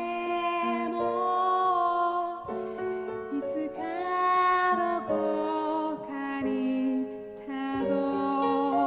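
A woman singing a slow song with long held notes over a keyboard accompaniment.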